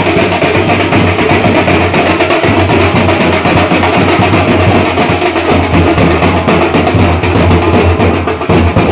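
Loud, dense drumming that runs on without a break.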